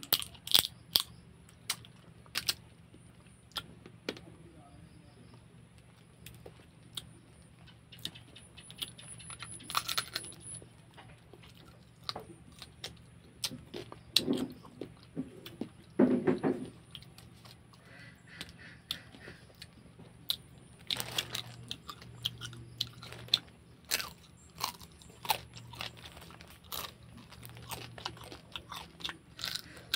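Cooked crab being eaten by hand: irregular sharp cracks and crunches of shell being bitten and broken apart, with chewing in between and a few louder crunches near the middle.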